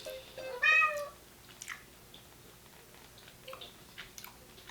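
One short high-pitched cry, about half a second long and arching slightly in pitch, followed by a few faint small clicks.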